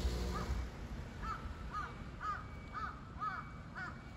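A crow cawing repeatedly, short harsh caws about two a second, over a low street rumble that fades during the first second.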